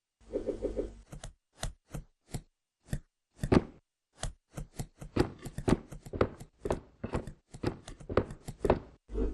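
An irregular series of sharp knocks, roughly two a second, each short and separate.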